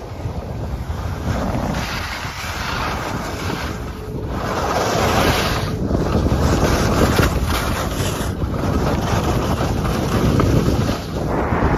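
Wind buffeting the microphone of a camera carried by a moving skier, mixed with skis hissing and scraping over chopped-up snow; it grows louder about four seconds in.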